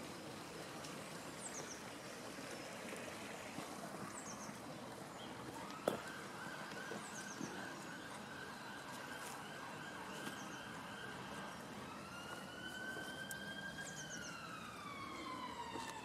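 Police siren: a steady tone comes in about six seconds in and goes on for several seconds, then turns into a slow rising and falling wail. A single sharp click comes just before the siren starts, and faint bird chirps are heard over steady outdoor background noise.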